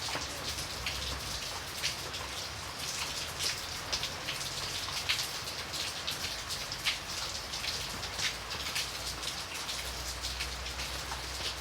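Steady rain falling, a continuous hiss with many close, distinct drops pattering on a surface.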